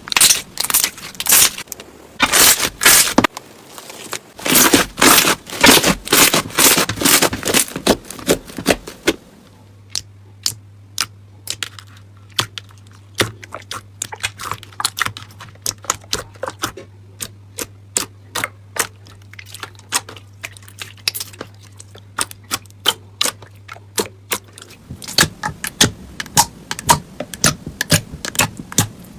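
Slime worked by hand, squished and pressed, with dense bursts of squelching for the first several seconds. After that come many sharp clicks and crackles, with a faint steady hum under them for most of the middle stretch.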